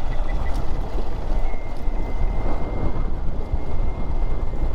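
Honda XR dirt bike riding on a dirt road: steady engine and wind rumble on the microphone. About a second and a half in, a thin, steady high whistle from insects comes in and holds.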